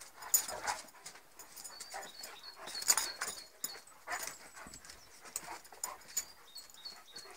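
A Northern Inuit dog and a Saarloos Inuit dog play-fighting: breathy panting and whines mixed with sharp clicks, with a louder burst about three seconds in.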